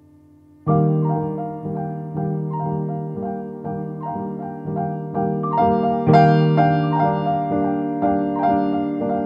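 Nord Grand stage piano playing solo: after a quiet lingering tone, chords come in suddenly about a second in and repeat in a steady pulse, a little over two a second. The playing grows louder and brighter about six seconds in.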